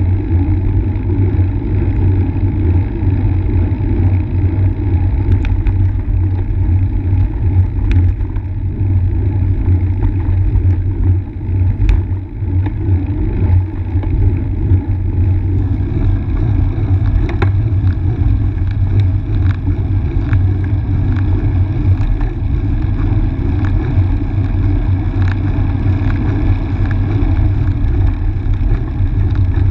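Steady low rumble of wind and road noise on a camera moving along with the riders, with a few faint clicks.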